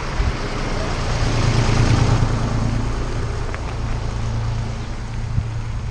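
Farm tractor's diesel engine running, a low steady hum that swells louder between about one and three seconds in and then eases, over wind noise on the microphone. A few short knocks come in the second half.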